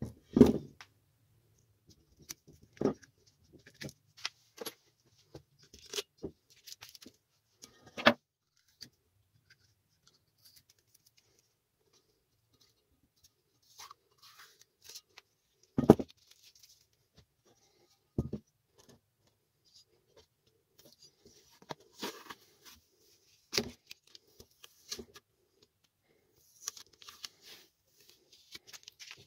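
Scattered clicks, knocks and short scrapes of small parts and tools being handled, uneven and irregular, with a louder knock near the start and another about sixteen seconds in.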